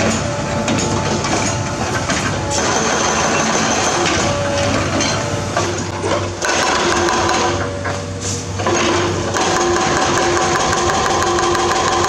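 Komatsu PC210 hydraulic excavator's diesel engine running steadily, with a constant mechanical clatter and humming tones; the sound dips briefly twice near the middle.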